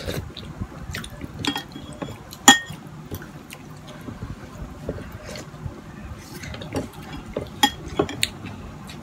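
Mealtime eating sounds: scattered small clinks and clicks of fingers and a metal spoon against a ceramic bowl and plate, with soft wet food sounds between them. The sharpest clink comes about two and a half seconds in, and a few more near the end.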